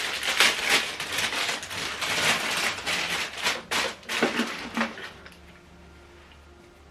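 Crinkling and clicking of plastic packaging and small plastic parts being handled as a remote control and its AAA batteries are unpacked, with many sharp little cracks and taps; it stops about five seconds in.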